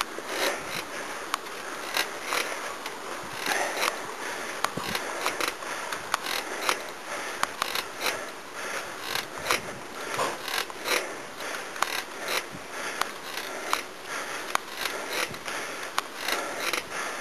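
Bicycle ridden over a rough forest road: a dense, irregular run of clicks and rattles from the handlebar, front basket and frame over steady tyre noise.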